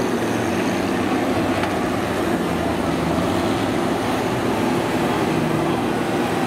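Diesel engines of several John Deere combines running together, a steady loud drone.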